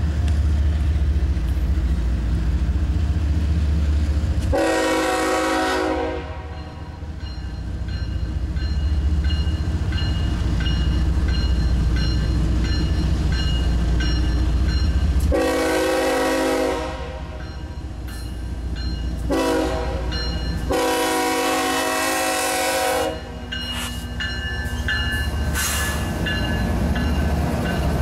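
CSX diesel freight locomotive's air horn sounding the grade-crossing signal: long, long, short, long, with the last blast the longest. Under it the approaching locomotive rumbles steadily, and a crossing bell rings faintly.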